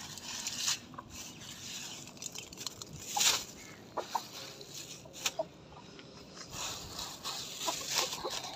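Chickens clucking in short, scattered calls, with a few brief rustling noises in between, the loudest about three seconds in.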